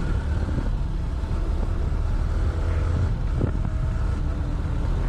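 Motorcycle running at speed, its engine under a steady rumble of wind buffeting the microphone, with a brief knock about three and a half seconds in.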